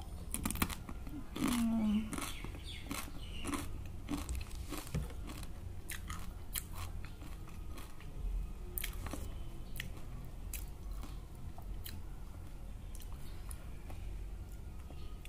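A person biting into a crisp chip and chewing it, with many sharp crunches that thin out later on.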